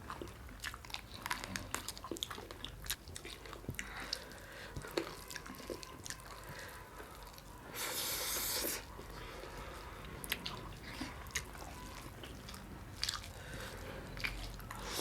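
Close-up chewing and biting of a person eating a meal, with small wet clicks and smacks scattered throughout. Just past halfway there is a brief hiss of noise lasting about a second.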